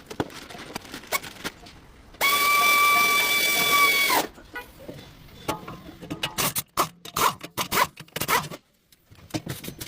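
A power tool whines steadily at one pitch for about two seconds and then winds down, followed by a run of sharp metal clicks and knocks.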